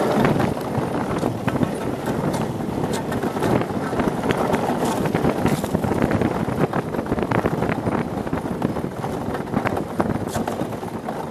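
Monotype XV ice yacht sailing at speed: its steel runners hiss and chatter over the ice in a continuous rough scraping, with many sharp clicks and knocks. Wind buffets the microphone.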